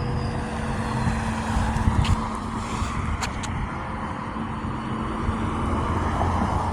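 Steady rumble of road traffic, a vehicle going by, with a few sharp clicks around two and three seconds in and a rising whine near the end.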